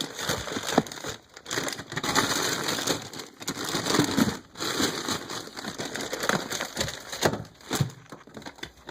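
Frozen food packages being shuffled and pushed into a freezer: plastic wrapping crinkling and crackling, with scattered knocks of items being set down.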